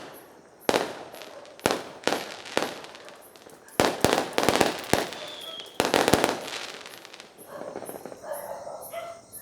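Home fireworks going off: a string of sharp bangs, some singly and some in quick clusters, each with a short fading crackle, dying away about two-thirds of the way through. Voices and crickets are heard near the end.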